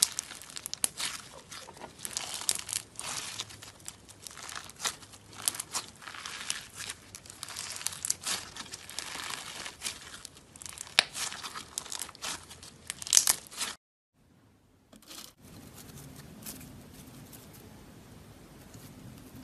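Floam (orange slime packed with small foam beads) squeezed and stretched by hand, giving dense crackling and popping with many sharp snaps. The crackling cuts off about fourteen seconds in. After a second or so of silence the sound turns much quieter, with a faint low hum.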